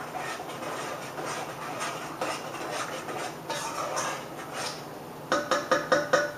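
A utensil stirring ground pork and gravy in a pot, scraping against the pot in uneven strokes. About five seconds in, it taps sharply on the pot six times in quick succession, each tap ringing briefly.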